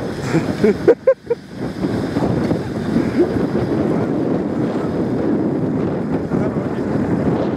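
Wind buffeting the microphone in a steady rumbling noise, over an off-road 4x4 running in the mud in the background. There are a few brief pitched sounds about a second in.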